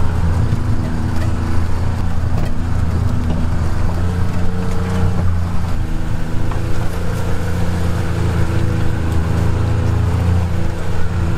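Utility vehicle's engine running as it drives along a rough dirt trail, a steady low drone whose pitch shifts a few times as the engine speed changes.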